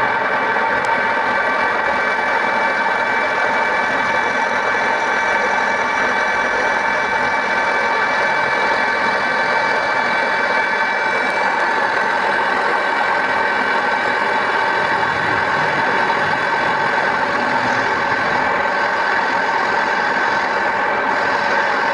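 A workshop machine running steadily under an even, unchanging load, with a constant hum of several steady tones over a noisy whir. One high tone drops out about halfway through.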